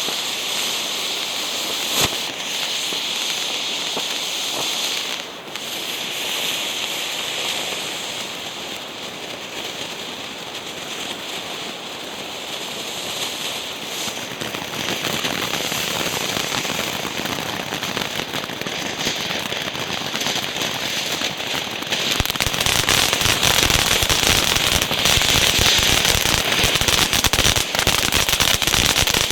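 Firework fountain burning with a steady hiss of spraying sparks and one sharp pop about two seconds in; about twenty-two seconds in it turns louder into dense, rapid crackling.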